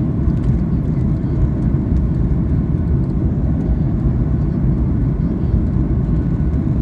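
Boeing 737 airliner cabin noise in flight: a steady low rumble of the jet engines and rushing air.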